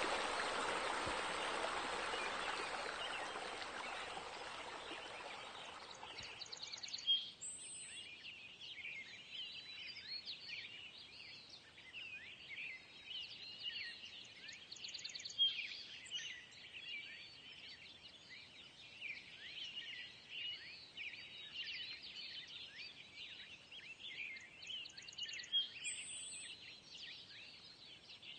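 Running, splashing water fades out over the first six seconds, giving way to many small birds chirping in dense, irregular short calls.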